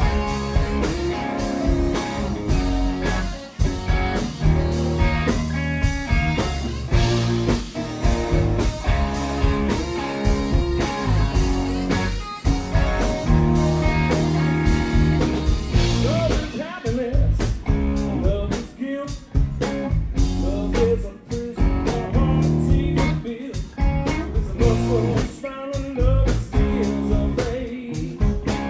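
Live blues-rock band playing, with electric guitars and drums.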